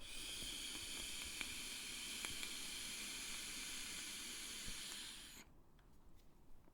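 Vaping breath from an e-cigarette: one long, steady hiss of air and vapour lasting about five seconds, then cutting off.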